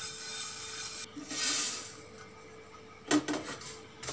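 Dry-roasted whole spices (coriander seeds, dried red chillies, cumin) being scraped with a wooden spatula out of the pan onto a steel plate: a brief rattling hiss of dry seeds sliding, about a second in.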